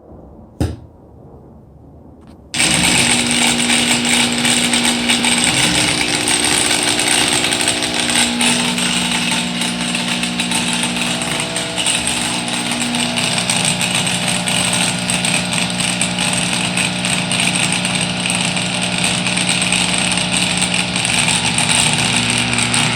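Harbor Freight angle grinder switched on about two and a half seconds in and running loud and steady, its pitch shifting a few times. The grinder is overworked after hours of cutting rusted steel plate and close to failing.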